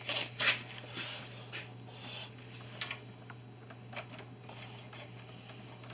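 Scattered light metallic clicks and scrapes of a hand socket wrench and tools working on the heat-shield bolts: a few quick clicks in the first second, then isolated ones about three and four seconds in.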